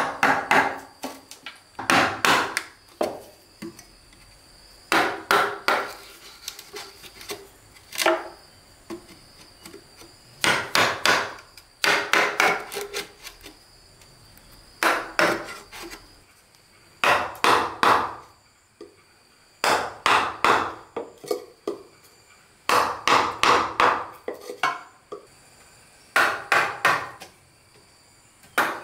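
A hand tool striking wood in about a dozen short bouts of several quick blows each, with a slight ringing after the blows and pauses of a second or two between bouts.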